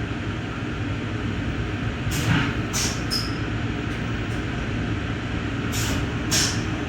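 Amtrak passenger train heard from inside the car as it rolls into the station: a steady low rumble with several short, sharp hissing clatters and a brief high squeal about three seconds in.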